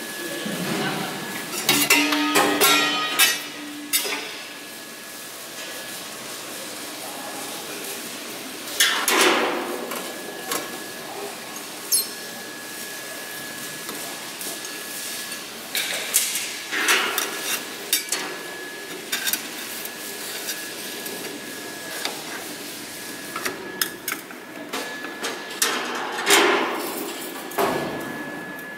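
Irregular metallic clanks, knocks and rattles of tools and steel parts being fitted on a diesel generator set's radiator and pipework, in scattered clusters with quiet stretches between. A faint steady high tone runs underneath.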